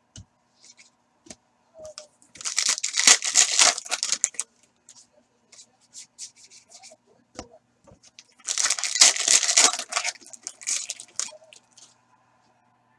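Trading-card pack wrappers being torn open twice, each a crackly rip lasting a second or two, with light clicks and rustles of cards being handled between.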